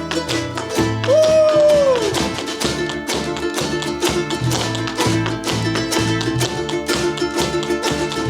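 A band playing an instrumental passage with a steady strummed guitar rhythm. About a second in, a held lead note bends up slightly and then slides down in pitch.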